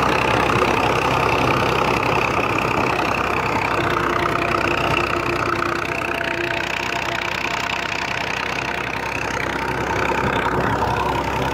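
Farm tractor engine running steadily as it tows a trailer, heard from the metal trailer bed behind it.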